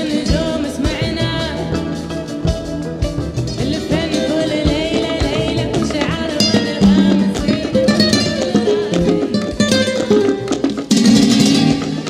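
Flamenco fusion music: plucked guitar over a steady percussion beat.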